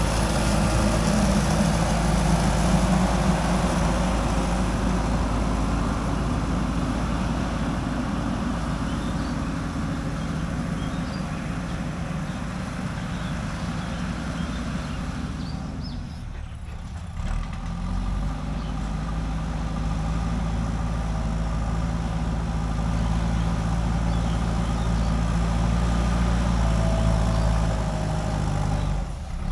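JCB 3DX backhoe loader's diesel engine running steadily under work. Its sound dips briefly about sixteen seconds in, then settles to a steady hum again.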